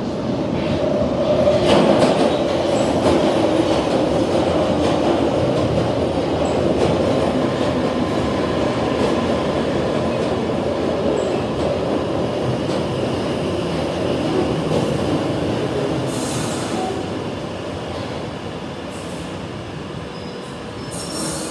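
London Underground Piccadilly line 1973 Stock train running into a tunnel platform: wheel rumble and clatter swell about two seconds in as it emerges and runs along the platform, then ease off as it slows, with short hisses and a thin squeal near the end as it brakes.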